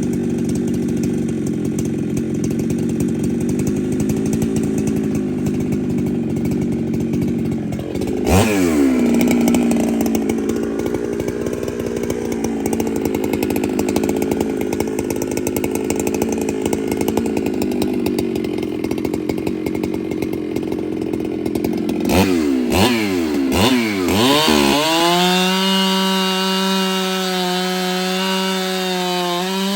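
Ported Husqvarna 395 two-stroke chainsaw held at full throttle and cutting under load, its pitch jumping up sharply about eight seconds in. Near the end it dips and recovers several times, then runs free at high revs with a clean, steady whine before dipping once more.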